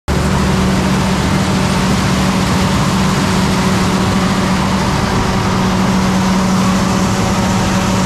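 Heavy diesel farm machinery running steadily: a John Deere 9670 STS combine harvesting corn and unloading into a tractor-drawn grain cart alongside it. A constant low hum with a steady rushing noise over it.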